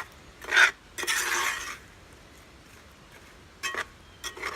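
A utensil stirring and scraping apples, butter and sugar around a metal pan: a few scraping strokes in the first two seconds, then a couple of short clinks near the end.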